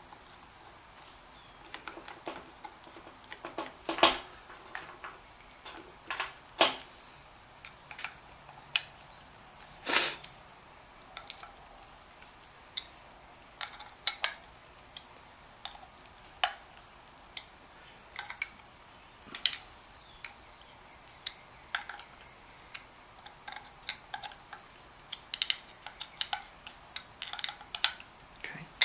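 Screwdriver clicking and scraping in the screws of a mechanical fuel pump as they are tightened, with scattered small knocks of metal parts and tools on a workbench. A few louder knocks fall in the first ten seconds.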